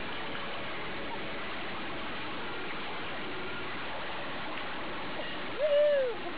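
Water rushing and splashing steadily around a person being dragged through the sea on a line behind a moving boat. Near the end a woman's voice gives one short, high cry that rises and falls.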